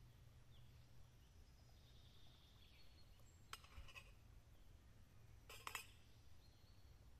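Near silence, broken by a few faint clinks of cutlery against plates: one about three and a half seconds in and a quick cluster about two seconds later.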